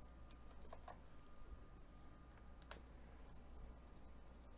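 Near silence: room tone with a faint low hum and a few faint, scattered clicks.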